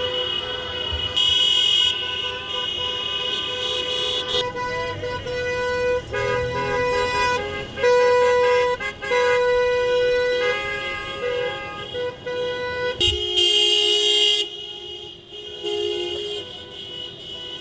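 Many car horns honking from a slow-moving line of taxis, in overlapping short and long blasts, some held for a second or more, over running traffic.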